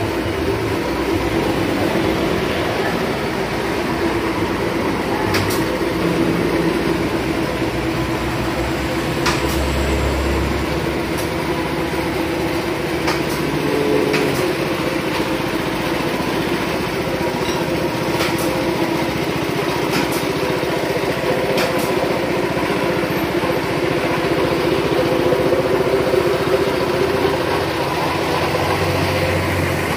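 A small engine or motor running steadily, with a few faint clicks and knocks here and there.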